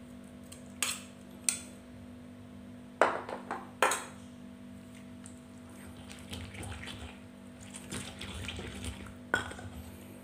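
A metal utensil knocks sharply against a bowl as juicy buni berries are scraped into a stone mortar, loudest twice about three and four seconds in. About halfway through, a stone pestle starts mashing the wet berries into the spice paste in the mortar, a rough, wet grinding with another knock near the end.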